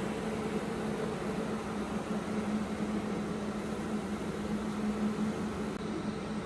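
Mecca Turn 460x1000 centre lathe running with a steady hum, its power feed engaged at the maximum feed rate.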